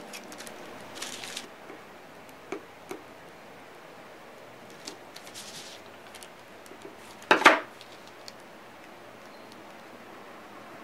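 Quiet handling sounds of hand work on a wax-coated wooden board: a burnishing tool rubbing over gold leaf, with a few light clicks and taps, and one louder knock about seven seconds in.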